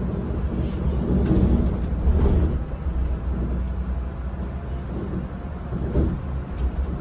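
Volvo 9600 sleeper coach driving along, its engine and road noise heard from inside the driver's cab as a steady low drone that swells a little between about one and two and a half seconds in.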